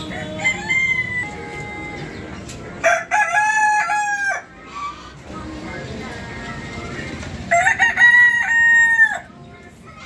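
A rooster crowing twice, each crow held for about a second and a half and dropping off at its end, with a shorter call about half a second in.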